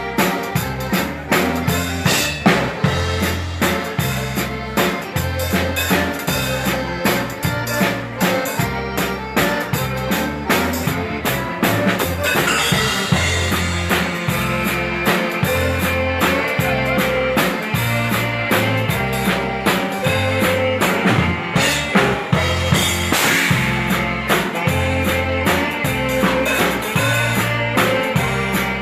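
Live Texas Czech dance band playing, a drum kit keeping an even beat under a low bass line that steps back and forth between notes, with other instruments over the top.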